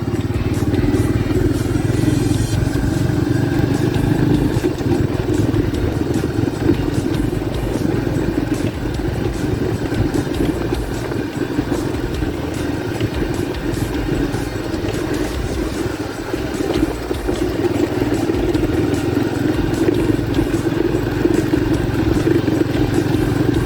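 Honda Pop 110's small single-cylinder four-stroke engine running steadily while the motorcycle is ridden, its camshaft bearing newly replaced.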